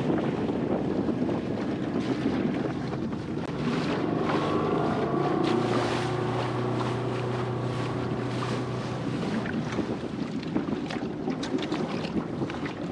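Small dinghy outboard motor running over choppy water, with wind buffeting the microphone and waves slapping the hull. The engine's steady hum comes through more clearly from about four seconds in and fades again about ten seconds in.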